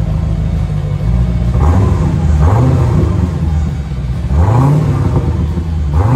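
C4 Corvette V8 running through a muffler-delete exhaust, idling and revved up in three short blips about two seconds apart, the last one starting near the end.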